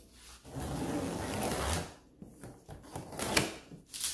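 Cardboard of a large TV box rubbing and scraping as it is handled and its top flaps are pulled open, then a single sharp snap a little over three seconds in.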